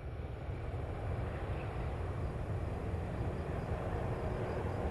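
Steady low rumble of aircraft engines and airflow, like an airliner heard in flight, swelling a little in the first second and then holding level.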